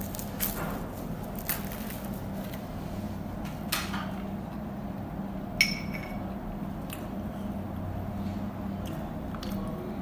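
Tableware being handled: a few light knocks and taps, and one sharp ringing clink of a utensil on a plate or glass about five and a half seconds in, over a steady low hum.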